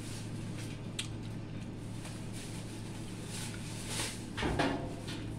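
Eating sounds: a fork clicking faintly against a plate a few times, then a mouthful taken and chewed near the end. A steady low hum runs underneath.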